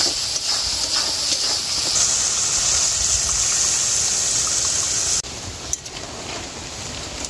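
Water poured into hot frying masala paste in a metal wok, hissing and sizzling as it hits. The hiss grows louder about two seconds in and cuts off abruptly about five seconds in, leaving quieter bubbling and a few clicks of a spatula.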